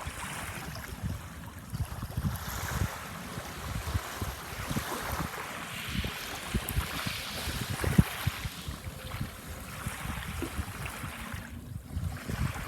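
Sea waves washing onto a sandbar shore, with a swelling wash near the middle. Wind buffets the microphone in many short low thumps.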